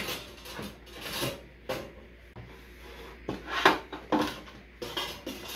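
Irregular scraping, rubbing and knocking as a toddler handles a metal coffee tin and slides it into a toaster, with one louder clatter a little before the four-second mark.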